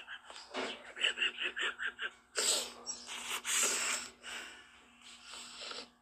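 A man laughing: a run of quick pulsed laughs, then two loud breathy bursts of laughter a couple of seconds in, trailing off into quieter breaths.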